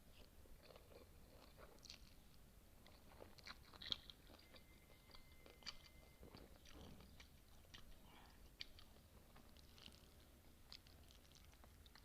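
Close-miked chewing of spicy noodles and kimchi: quiet, irregular crunches and small clicks, the sharpest about four seconds in.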